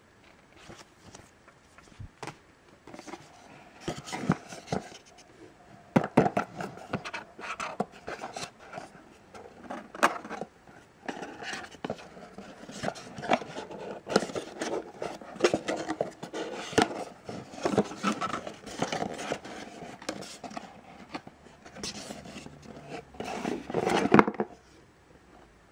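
Hands handling paper leaflets and the cardboard packaging of a small camera box: irregular rustling, scraping and small knocks, with a louder rustle just before the sounds stop near the end.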